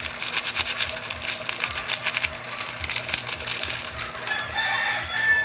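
A rooster crowing, its long held call starting about four seconds in. Before it comes a run of rapid crackling rustles.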